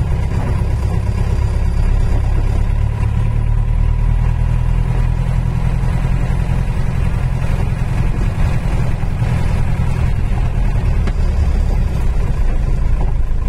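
Car driving along, a steady low rumble of engine and road noise.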